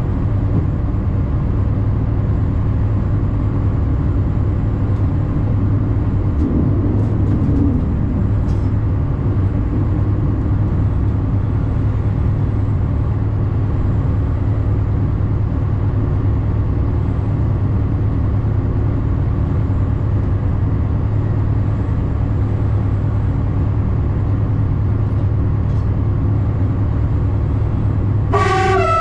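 A diesel railcar running along the line, heard from inside the driver's cab as a steady engine and rail drone with a low hum. Near the end its horn sounds briefly, starting low and stepping up in pitch.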